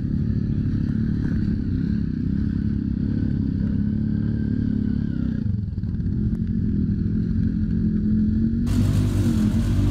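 ATV and side-by-side engines running as the machines churn through a deep mud hole, with some clatter. A hiss comes in abruptly near the end.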